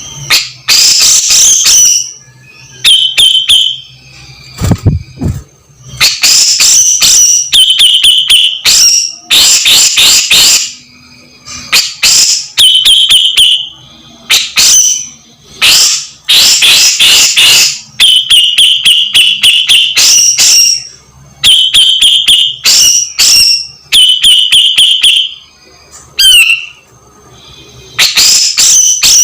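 Grey-cheeked bulbul (cucak jenggot) giving loud, harsh chattering calls again and again. Each phrase is a rapid run of sharp notes lasting a second or two, with short gaps between phrases.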